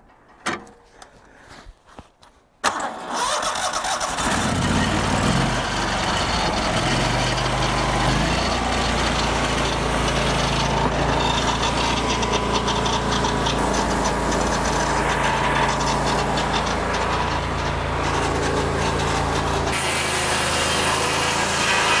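Petrol engine of a Lucas Mill portable swing-blade sawmill starting about three seconds in after a couple of clicks, its speed wavering for a few seconds before it settles into steady running. Near the end the low rumble drops away and the sound turns higher and brighter. The saw is being fired up to check that it runs straight along the log.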